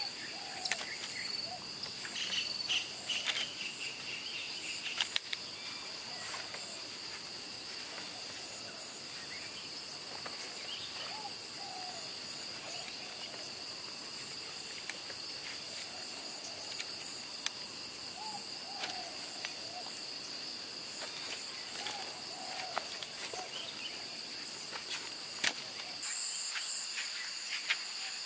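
Steady, high-pitched insect chorus, with faint short calls lower down every few seconds. Scattered light clicks and knocks come from a folding camp chair being put together.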